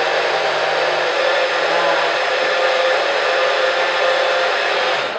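Small personal blender's motor running steadily as it blends a green smoothie in its tall cup, then cutting off suddenly near the end.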